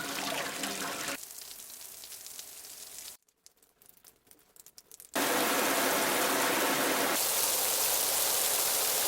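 Water sound effects: a pouring, splashing sound breaks off about a second in, a faint hiss trails away into near silence, then a loud, even rush of rain-like water noise starts abruptly about five seconds in and cuts off at the end.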